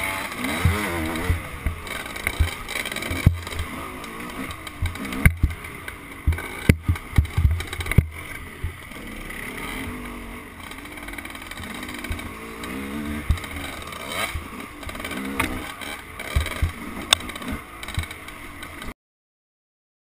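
Dirt bike engine revving up and down as it rides a bumpy trail, with frequent sharp knocks and clatter from the bike over bumps. The sound cuts off suddenly near the end.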